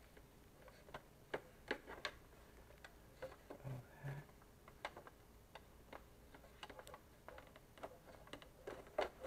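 Faint, irregular clicks and taps of plastic as a power cord and plug are worked against the back of a computer monitor.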